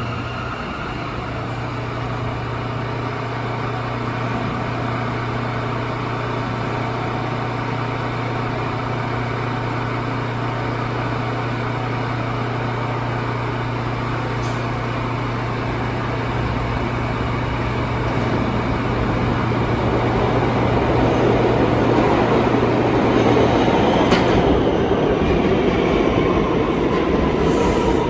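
New York City Subway R179 train running, with a steady electric hum and whine over rumbling wheel and rail noise that grows louder in the last ten seconds. Near the end the hum stops and the whine tones fall in pitch.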